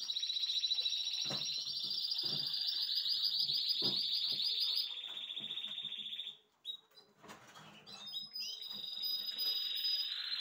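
Spanish timbrado canaries singing continuous, high-pitched rolling trills, with wooden cages knocking as they are lifted and set down. The song breaks off about six seconds in and starts again after a short pause.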